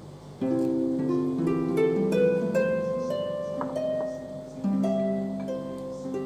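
Background music: an instrumental melody of single pitched notes that starts about half a second in.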